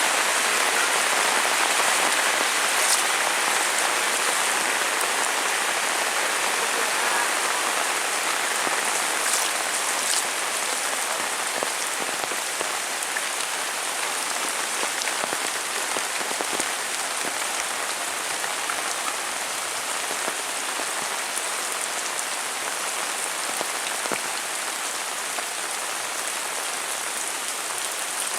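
Heavy rain falling steadily, a dense even hiss with scattered individual drops ticking through it.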